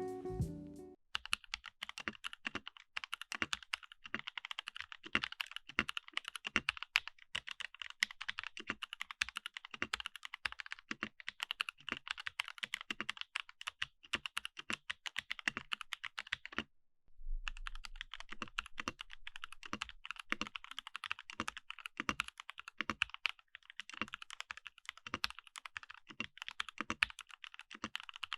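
Typing on a mechanical keyboard fitted with Jwick Ultimate Black linear switches: a fast, irregular stream of keystroke clacks. A short break about halfway through, then the typing resumes.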